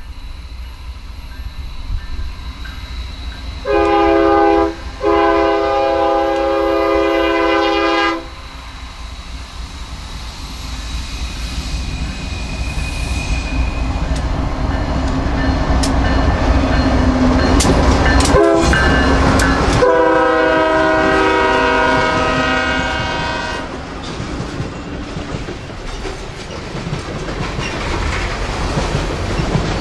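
Diesel locomotive's multi-chime air horn sounding a short blast and then a long one, over the rumble of a train rolling along the rails. The rumble builds, and the horn sounds once more, long, about twenty seconds in.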